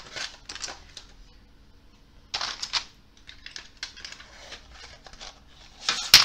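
Wooden coloured pencils clicking and rattling against each other and their metal tin as the pencil trays are handled. The clicks come in scattered clusters, with the loudest clatter near the end.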